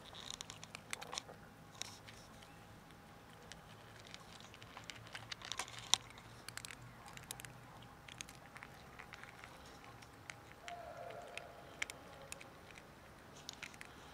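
Cats crunching dry kibble from plastic tubs, an irregular run of small crisp cracks and clicks, loudest about six seconds in.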